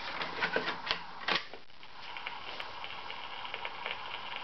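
A 45 rpm single slid into the slot of a battery-powered Wilco Pepito portable record player: plastic scraping and small knocks, then a sharper clunk about a second and a half in. From about two seconds in, a steady whir with light irregular ticking sets in as the player starts turning the record.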